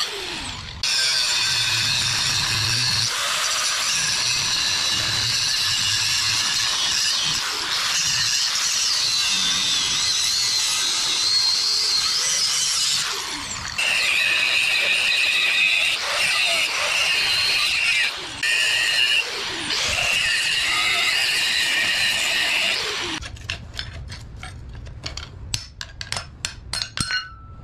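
Corded angle grinder cutting into the steel casing of an air-conditioner electric motor: a loud, steady whine whose pitch wavers as the disc bites, broken by a few short pauses. Near the end the grinding stops and a screwdriver pries and taps at the cut casing, making a quick run of metal clicks.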